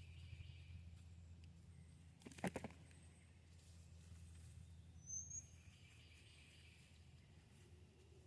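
Near-silent outdoor garden ambience with a steady low rumble, broken by a brief cluster of clicks a couple of seconds in and a single short, high bird chirp about halfway through.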